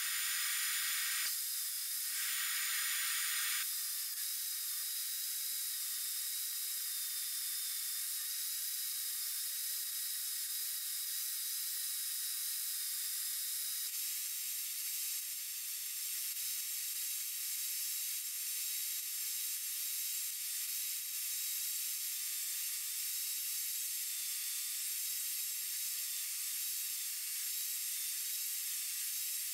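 Table saw blade cutting into the end grain of a Douglas fir cylinder as it is turned over the blade, heard as a steady high hiss with a faint thin whine and no low rumble.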